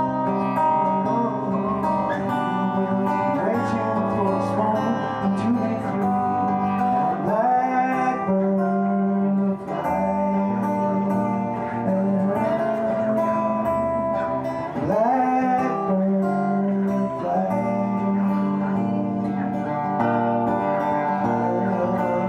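A man singing live while playing an acoustic guitar. His voice slides up into several of the notes.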